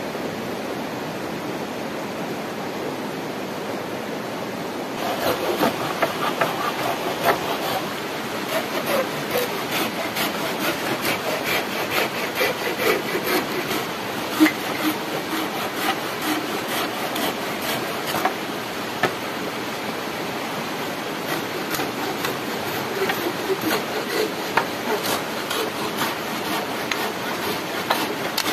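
Steady rush of flowing water, then from about five seconds in a knife working on a wooden pole: repeated scraping, rasping strokes with sharp clicks.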